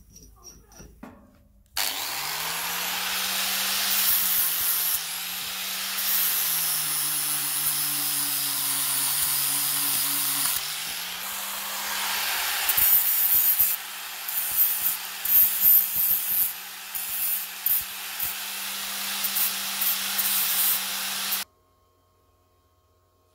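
Electric power tool running under load over a harsh, hissing rasp. The motor spins up about two seconds in, drops in pitch as it bites for a few seconds, picks back up, and cuts off suddenly near the end.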